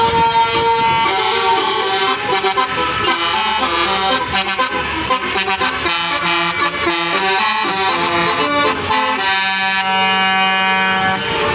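A bus's basuri musical horn playing a melody of stepping notes, with a reedy, accordion-like tone, ending in a long held chord near the end.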